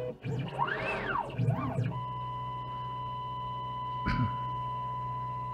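CNC router's axis drive motors whining through an automatic probing routine: two quick moves whose pitch rises and falls as the axes speed up and slow down, then a steady single tone as the machine creeps slowly at its probing feed. A short knock about four seconds in.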